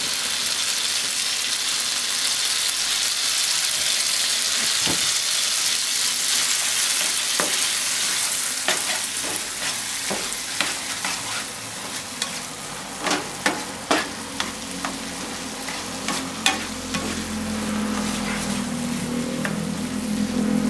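Diced tomatoes sizzling in butter in a non-stick frying pan, with a steady frying hiss. A slotted spatula scrapes and taps against the pan as the tomatoes are stirred. The taps come more often in the second half.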